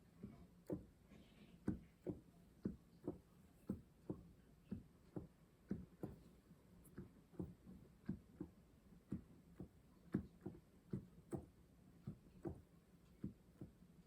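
Casio PX-S1100 digital piano's keys being pressed, giving soft, uneven knocks about twice a second: the mechanical noise of its key action, which is a bit noisy.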